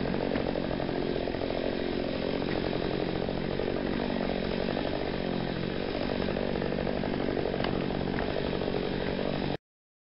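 Chainsaw running steadily at a constant pitch, cutting off abruptly near the end.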